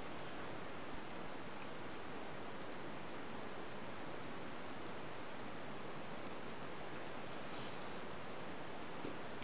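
A dog licking another dog's head and face: faint, small wet clicks of the tongue, a few a second, over a steady hiss.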